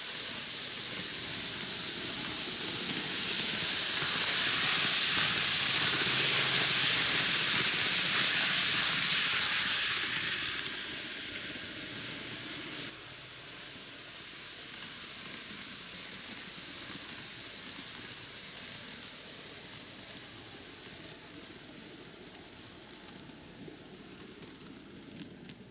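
N-gauge Keio 9000 series model train running on its track: an even rolling hiss of wheels and motor that swells up over the first few seconds, stays loud for several seconds, then drops away sharply about halfway through and runs on fainter.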